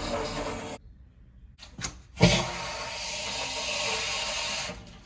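Steady hiss of water flowing through a water heater's valve and piping. It cuts off abruptly under a second in; a couple of clicks and a loud knock follow just over two seconds in, then the hiss resumes and stops near the end.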